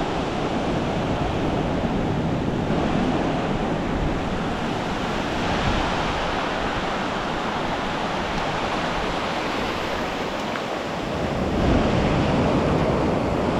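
Ocean surf washing steadily onto the beach, swelling a little near the end.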